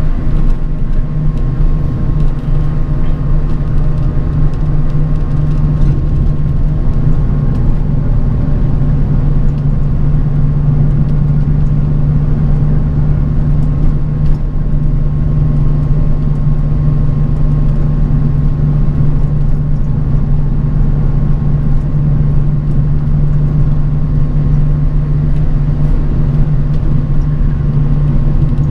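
Bus ride heard from inside the cabin: the engine and road noise make a steady low drone, with a faint steady whine above it.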